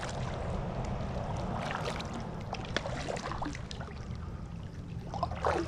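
Water trickling and splashing around a kayak on a canal, with a few light knocks.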